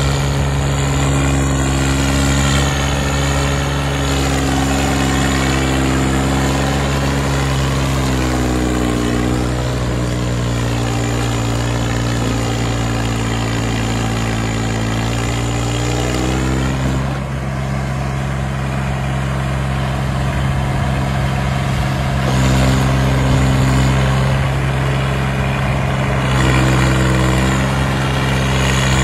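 Swaraj 855 tractor's three-cylinder diesel engine working hard under heavy load as it hauls a loaded trolley, heavy enough to lift the tractor's front wheels. A steady low drone throughout, with the engine note climbing slowly through the middle and dropping back just past halfway.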